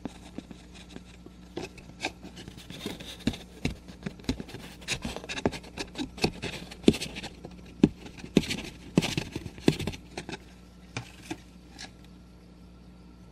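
Loose glitter being tipped off a folded sheet of paper back into a small plastic jar: paper rubbing and scraping against the jar's rim, with many light ticks and taps. The ticks come thickest in the middle and thin out near the end.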